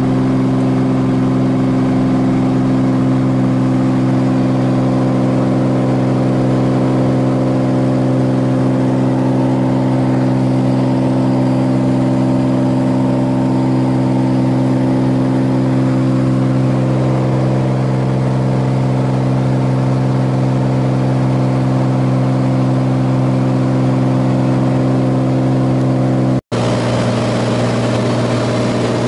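Single-engine piston airplane's engine and propeller running steadily, heard from inside the cockpit as a loud, even hum. About 26 seconds in, the sound drops out for an instant and comes back with a slightly different pitch, at a cut in the recording.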